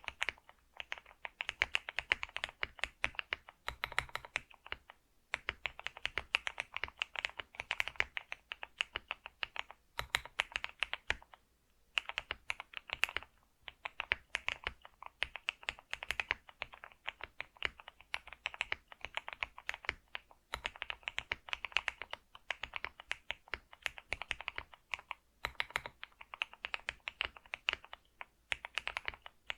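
Typing on a computer keyboard: quick, continuous runs of keystrokes, broken by a few short pauses.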